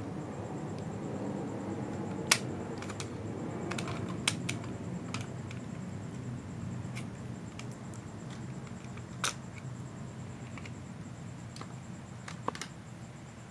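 Scattered sharp clicks and taps from a toy drone's remote controller being handled and pried apart by hand, over a faint steady background hum. The loudest click comes about two seconds in, with others around four and nine seconds in.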